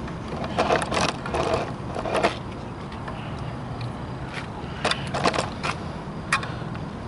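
Handling noise as the camera is moved: irregular clusters of knocks and scrapes in the first two seconds and again past the middle, with one last knock near the end, over a low steady background rumble.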